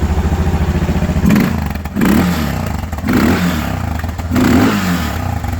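Suzuki DR650's single-cylinder engine running on its first start after a rebuild: idling with an even beat, then revved four times about a second apart and back to idle. It runs cleanly, with no gearbox noise.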